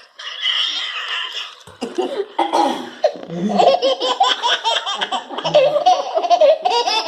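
A baby laughing in quick repeated bursts, building up and strongest in the second half, after a short noisy sound at the start.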